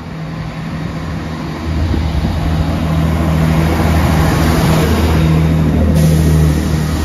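Class 165 diesel multiple unit passing, its diesel engines running with a steady low drone that grows louder about a second and a half in, over rumbling wheel and track noise.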